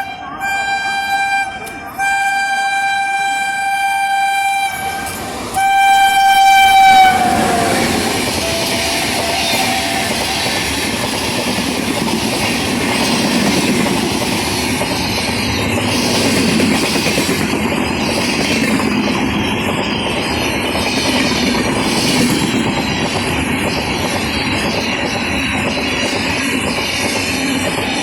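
WAP-7 electric locomotive's shrill horn sounding in several long blasts as the express approaches, the last and loudest dropping in pitch as the locomotive passes about seven seconds in. Then the coaches of the superfast train rush past with a steady rumble and wheel clatter on the rail joints.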